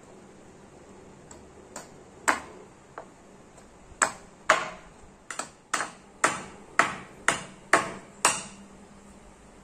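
A series of about a dozen sharp, briefly ringing knocks as a machete is struck to drive its blade into a small block of spalted sengon wood. The knocks start sparsely about two seconds in, then come louder at about two a second.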